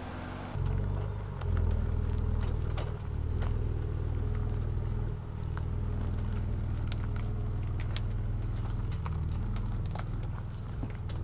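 Ford Ranger Raptor pickup's engine running at low revs as it crawls over a rutted, rocky dirt track, with scattered clicks and crunches of stones under the tyres. The engine steps up in level about half a second in and again a second later, then holds steady.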